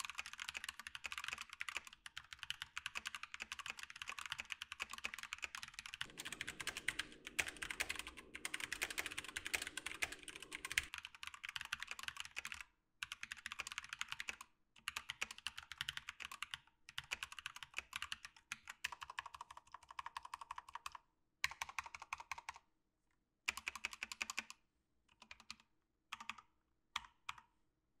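Typing on a hot-swap Keychron K4 V2 mechanical keyboard built with Glorious Panda tactile switches lubed with Tribosys 3203, foam inside the case and PBT keycaps. A continuous run of fast keystrokes for about twelve seconds, then shorter bursts of typing with pauses between them.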